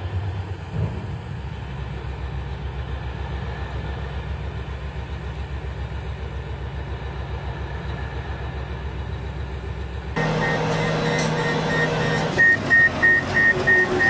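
Large mining dump truck's engine running with a low, steady, pulsing rumble while its bed is raised for tipping. About ten seconds in the sound changes abruptly to heavy mining machinery, and a high backup alarm starts beeping about three times a second.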